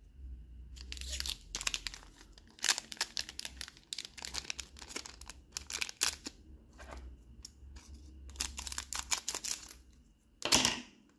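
Foil wrapper of a Magic: The Gathering collector booster pack crinkling and tearing as it is handled and opened, in irregular crackles with the loudest burst near the end.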